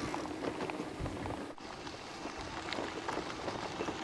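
KTM Cento 10 Plus e-bike's tyres rolling over a gravel track: a steady crunching hiss with small scattered ticks from the stones, mixed with wind on the microphone. The sound briefly drops out about one and a half seconds in.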